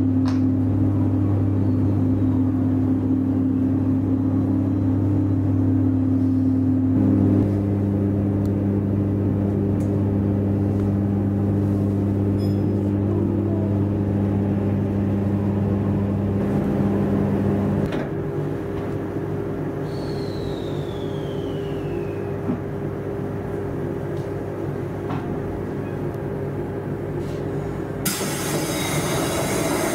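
Cabin sound of a JR East 719 series electric train slowing into a station: a steady electrical hum and rumble whose tones step down twice, a thin falling squeal about two thirds of the way through, and a loud rush of hiss near the end as it comes to a stop.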